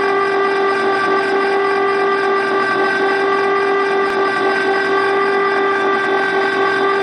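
Electric ice cream maker's motor running steadily, churning a thick batch of ice cream, with a constant unchanging whine. A single brief click about four seconds in.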